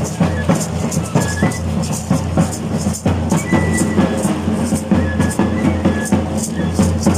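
Traditional drum and carrizo (cane flute) music: the flute plays short, high held notes over quick, steady drum strokes.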